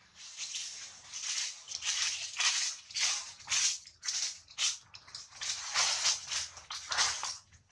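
Leafy tree branches rustling and shaking in a string of short crackling bursts, about two a second.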